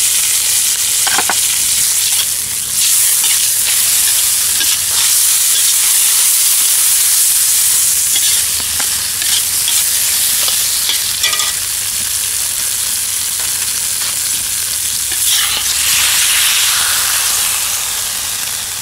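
Noodles, duck breast and vegetables sizzling hard in a hot cast-iron wok while being stir-fried, tossed with a long-handled metal skimmer that now and then scrapes and clicks against the pan.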